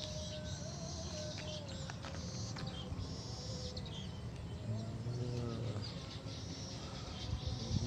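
Wild birds chirping: many short, high calls scattered over a steady low rumble, with a brief lower pitched call about five seconds in.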